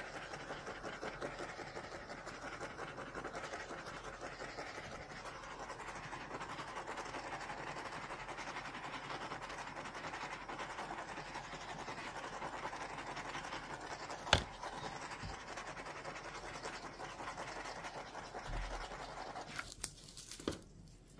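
Handheld torch flame hissing steadily as it is passed over wet resin, with one sharp click a little past halfway. The hiss cuts off suddenly near the end.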